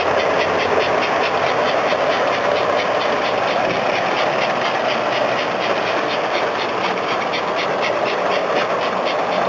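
S gauge model of a NYC 4-8-2 Mohawk steam locomotive, custom-built from an American Flyer Hudson, running on its track pulling a freight train. Its motor and gears give a steady whirring grind, and the wheels rolling over the rails add a fast, regular ticking.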